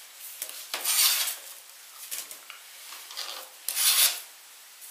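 Kitchen knife blade scraping chopped onion across a plastic cutting board, two longer scrapes with a few small knocks between them, as the pieces go into a stainless steel pot.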